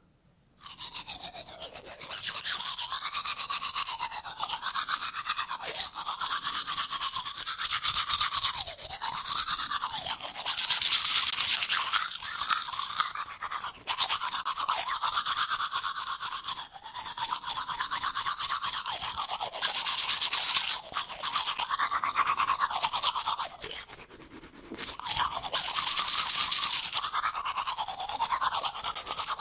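A toothbrush scrubbing teeth in the mouth: continuous wet scrubbing whose tone shifts as the brush moves around the mouth, with a short lull a little before the end.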